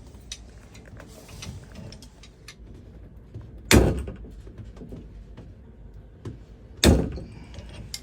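Two loud knocks about three seconds apart, with light clicks and taps between them, from hand tools being worked against a shower valve to free a stuck cartridge.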